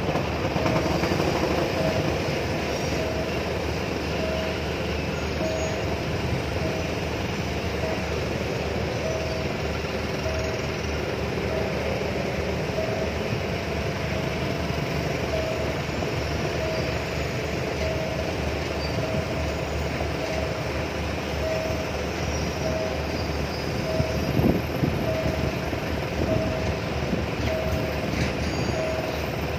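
Passenger train carriages rolling steadily past over a road level crossing with a continuous rumble and clatter, while the crossing's warning bell beeps evenly, about once every three quarters of a second. A brief louder knock comes near the end.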